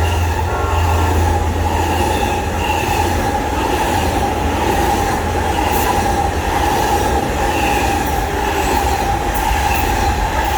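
Amtrak Auto Train running through the station without stopping: a steady loud rolling rumble of wheels on rail, with a sustained high-pitched wheel squeal ringing over it. The low rumble is heaviest in the first couple of seconds.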